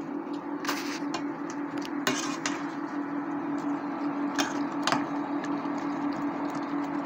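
A metal spoon stirring thick sauce in a stainless steel pan, with a few sharp clinks and scrapes against the pan's side, over a steady low hum.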